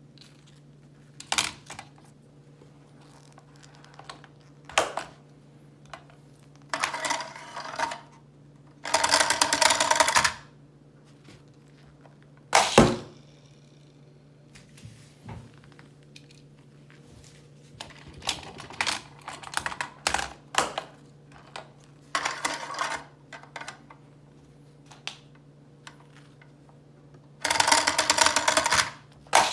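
Hot Wheels toy set and its packaging being handled: irregular bursts of plastic rattling and clattering, with a few sharp single clicks, over a steady low hum.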